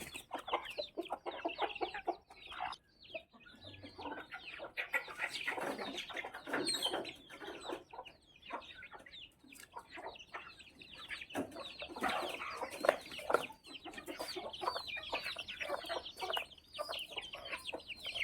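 Chickens clucking continuously, many short overlapping calls.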